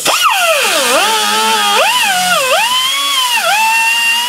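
Air-powered cutoff wheel whining as it cuts through a rotted steel brake line. Its pitch drops three or four times as the wheel bites, climbs back each time, and then holds fairly steady near the end.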